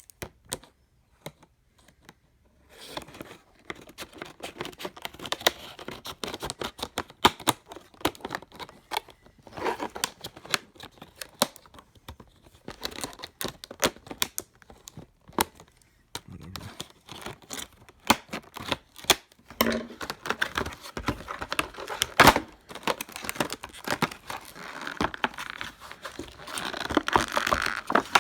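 Retail packaging of a screwdriver bit set being torn and crinkled open by hand, a dense run of irregular tearing, rustling and clicking that starts about two and a half seconds in.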